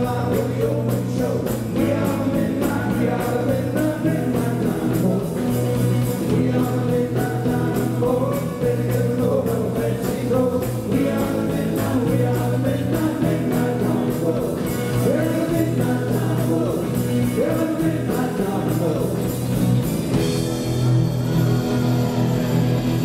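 Live rockabilly band playing: electric guitars and a drum kit under several male voices singing together. Near the end the singing drops away and the guitars and drums carry on.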